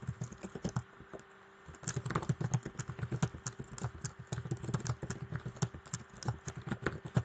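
Computer keyboard typing: a quick run of key clicks, with a short pause about a second in.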